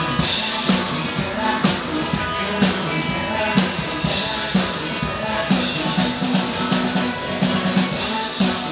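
Drum kit played along to a recorded pop song, with steady regular beats.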